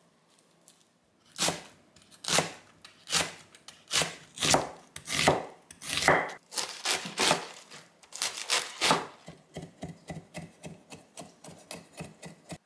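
Global chef's knife cutting on a wooden chopping board: slow, sharp slicing strokes through a red onion at about two a second, then from about three-quarters of the way in, quicker, lighter strokes mincing garlic.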